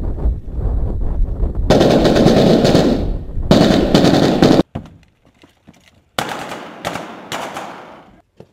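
Low wind rumble, then long sustained bursts of rapid automatic gunfire for about three seconds that cut off abruptly; after a short gap, another burst of fire that trails away.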